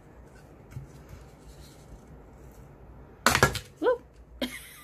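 A sharp, brief cracking snap as a thin wooden cigar-box side pops loose from its small nails, after a few seconds of quiet handling.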